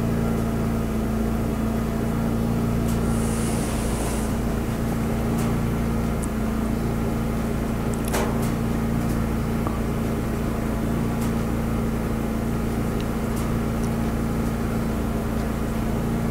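Steady mechanical hum with a constant low tone, running evenly throughout, with a few light clicks.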